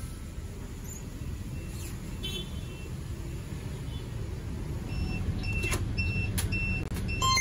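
Idling city bus engine, a steady low rumble with street traffic around it. A few short high beeps and clicks come in the second half as a fare card is held to the bus's card reader.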